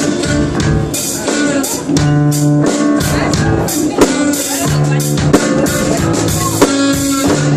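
Live band playing an instrumental passage of a song, with guitar and drum kit keeping a steady beat.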